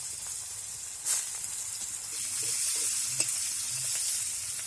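Chopped onion sizzling as it fries in hot mustard oil in a kadai, a steady hiss with a brief louder burst about a second in and a few small clicks.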